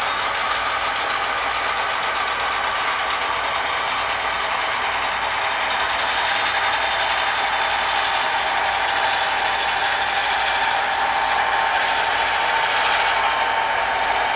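HO scale model train running along the layout's track, a steady mechanical running noise that grows slightly louder as it approaches.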